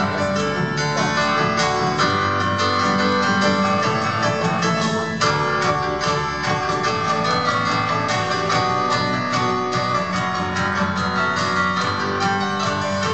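Electronic stage keyboard playing a busy instrumental passage, many quick notes over a steady bass line.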